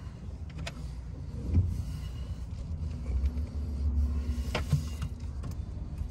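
Inside the cab of a 2018 Ram 1500 pickup pulling away at low speed: a steady low engine and road rumble, with three sharp clicks inside the cab.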